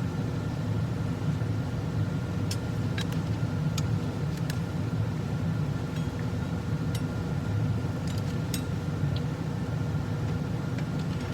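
A few light clicks of transmission clutch plates being handled and sorted, over a steady low background hum.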